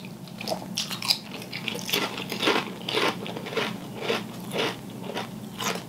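Crunchy chips being bitten and chewed, a crisp crunch about twice a second.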